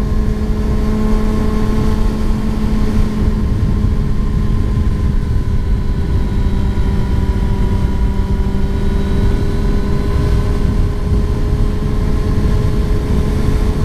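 Kawasaki Ninja ZX-6R's inline-four engine running at a steady speed while cruising, with heavy wind noise on the microphone.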